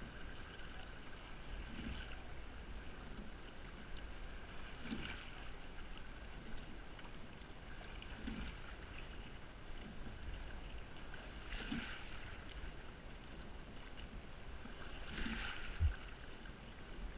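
Rowing boat under way at a slow, steady stroke: a splash and a knock from the oars recur about every three and a half seconds over a low rumble of wind on the microphone. A sharp single thump near the end is the loudest sound.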